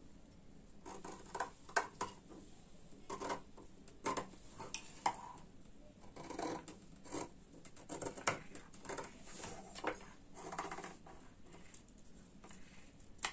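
Tailoring scissors snipping through layered cotton fabric and canvas facing in a run of short, irregular cuts, trimming the seam allowance to half an inch along a stitched neckline.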